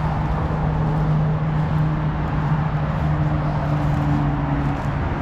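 Steady road traffic noise from vehicles going around the roundabout, with a low engine hum through most of it and a second, higher hum joining about three seconds in.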